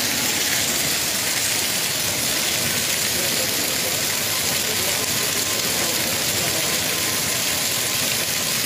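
Hail and heavy rain pelting down on the street, a dense, steady hiss with no let-up.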